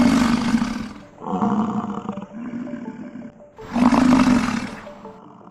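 Highland cow mooing repeatedly: long, loud moos at the start and about four seconds in, with two shorter, quieter moos between them.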